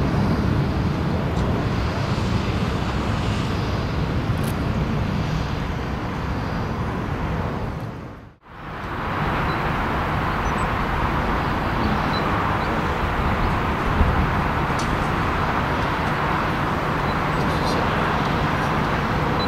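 Jet engine noise of Condor Airbus airliners: a steady rumble from one climbing away after takeoff, then, after the sound drops out for a moment about eight seconds in, steady jet noise from another moving along the runway.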